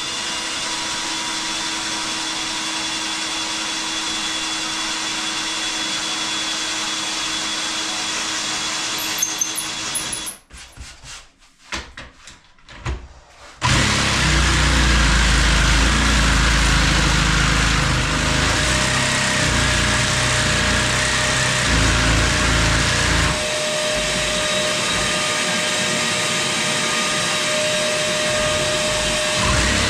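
A cordless drill runs steadily for about ten seconds. After a short break, a cordless jigsaw cuts into fibre-cement benchtop sheet with chipboard beneath, and a vacuum runs with it. The noise eases a little about 23 seconds in.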